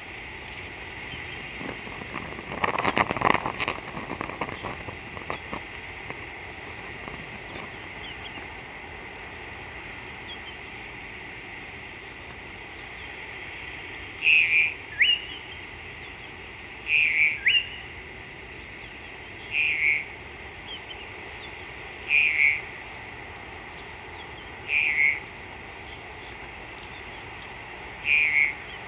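Wildlife chorus: a steady high drone of calling animals, with a loud crackling burst about three seconds in. From midway on, a short call repeats six times, about every two and a half seconds.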